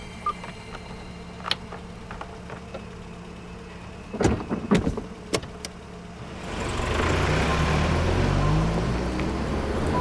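A few sharp clunks, then a car engine running louder from about six and a half seconds in, its low note rising and falling.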